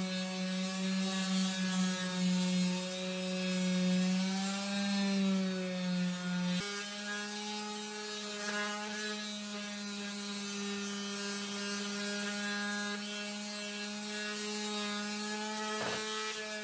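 Handheld electric power tool motor running steadily at a high, even pitch. The pitch sags briefly about four to five seconds in. The sound changes abruptly at about six and a half seconds and then runs steady again.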